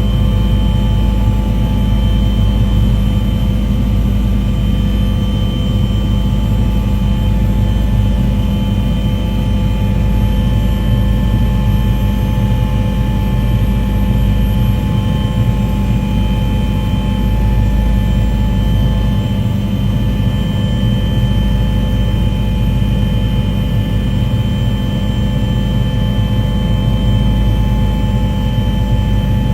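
A steady engine drone with a deep rumble and several fixed, unchanging tones above it.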